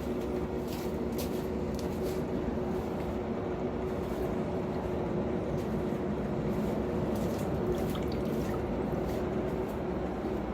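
Forge running with a steady hum and a constant low tone, with scattered light clicks and taps over it.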